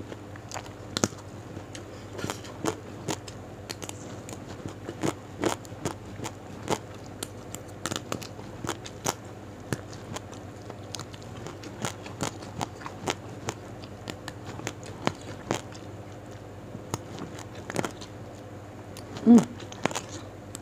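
Close-miked chewing of raw petai (stink beans): irregular crisp crunches and mouth clicks. A short hummed vocal sound, the loudest moment, comes near the end.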